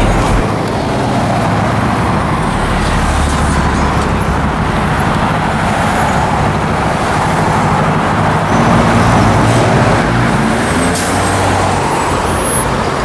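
Street traffic: cars driving past with their engines running and tyre noise, at a steady level.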